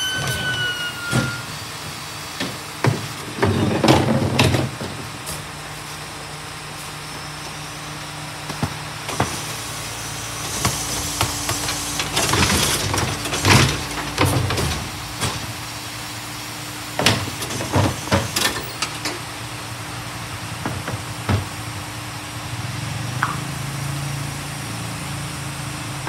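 Rear-loader garbage compactor truck running with a steady hum as its hydraulic bin lifter and compactor work, with metal clanks and bangs of the bin and lifter at intervals, in clusters a few seconds in, around the middle and past the middle.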